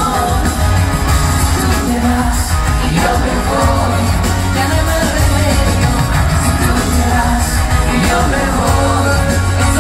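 Live pop-rock band playing, with singing over guitar, drums and a heavy, steady bass, heard from the audience in a large hall.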